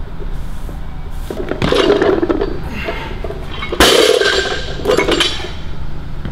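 Barbell weight plates clanking: two loud metal clashes about two seconds apart, each ringing briefly, then a lighter clank, over a steady low hum.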